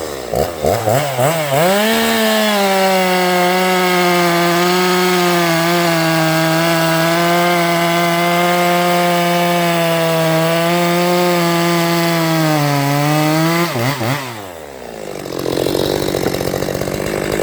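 Stihl MS 363 two-stroke chainsaw revving up, then held at full throttle at a steady, slightly sagging pitch as it cuts wood. Near the end the revs drop off briefly before the saw runs loud again.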